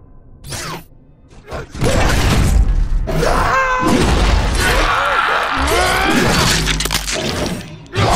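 Sound-effects mix of a creature attack: loud crashing impacts with wailing, pitch-gliding screeches, over music. It turns loud about two seconds in, after a quieter start, and drops away near the end.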